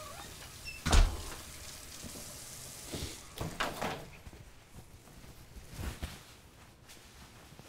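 A house's front door shuts with one heavy thump about a second in, followed by a few softer knocks and rustles of someone moving about.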